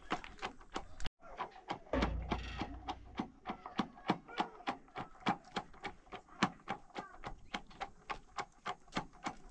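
Wooden pestle pounding curd in a tall white container: steady, even knocks, about three a second. A short rush of noise comes about two seconds in.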